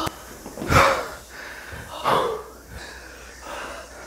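Human breath gasps: two sharp, breathy gasps about a second and a half apart, each falling in pitch, as the breath runs out during a long forced exhale held in a deep squat.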